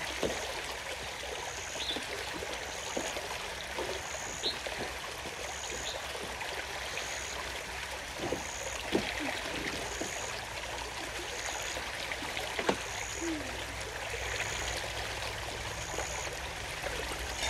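River water running steadily, with a short high chirp repeating about every second and a half and a few scattered sharp knocks.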